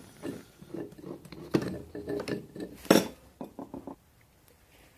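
Metal objects clinking and clattering as they are handled, a series of short knocks and clinks, some briefly ringing, with the sharpest clank about three seconds in.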